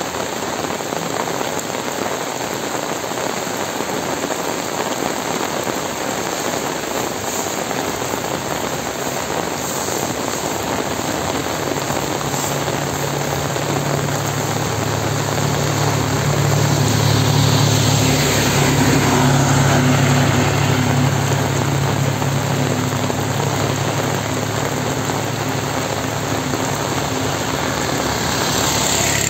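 Heavy rain falling steadily. About twelve seconds in, a motor engine's steady low hum comes in under it, grows loudest around two-thirds of the way through, then eases off but keeps running.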